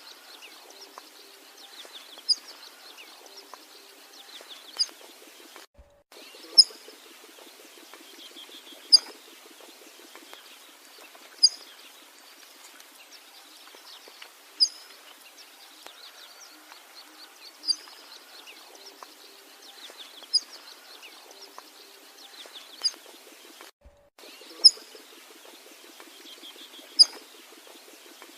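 Outdoor bird chorus: one sharp, high chirp repeats about every two and a half to three seconds over a continuous background of fainter calls and chatter. The sound drops out briefly twice, about six seconds in and again near the end, where the recording loops.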